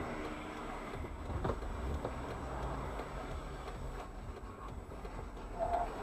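Steady low rumble of a car in motion, heard from inside the cabin, with one faint click about a second and a half in.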